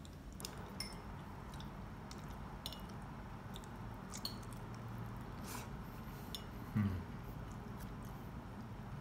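Quiet eating sounds: scattered light clicks of metal chopsticks against ceramic dishes, with one dull thump about seven seconds in.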